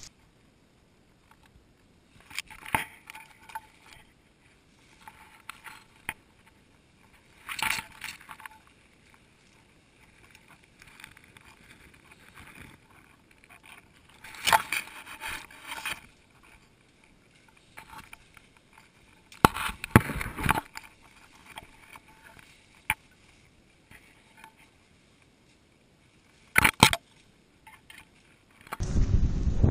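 Leaves and stems of thick undergrowth brushing and scraping against the camera during a walk through the bush: short bursts of rustling every few seconds with near quiet between. Near the end, wind rumble on the microphone starts abruptly.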